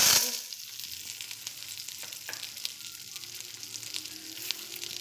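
Popcorn kernels poured into hot melted butter in a nonstick pan: a loud burst of sizzling as they land, dying down within about half a second, then steady butter sizzling with light crackles.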